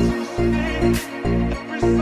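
Background electronic dance music with a steady, pulsing bass beat.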